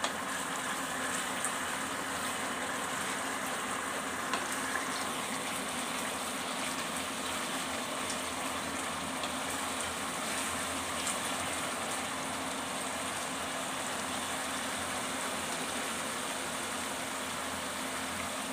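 Onion-and-tomato masala frying in oil in a kadai: a steady sizzle and bubbling as the paste cooks down until the oil separates. There are a couple of faint ticks from the spatula, one at the start and one about four seconds in.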